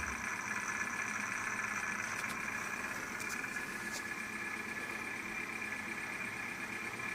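Izola Apollo 636W washing machine running with a steady hum and a high whine, with a few faint clicks.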